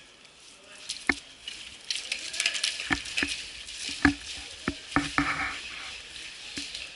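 Airsoft guns firing single shots: about eight sharp cracks at irregular intervals over a steady hissing rustle.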